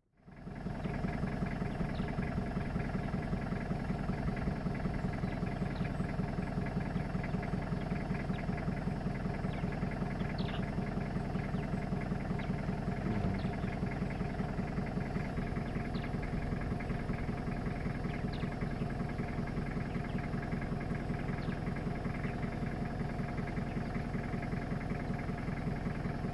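Vehicle engine idling steadily, starting suddenly.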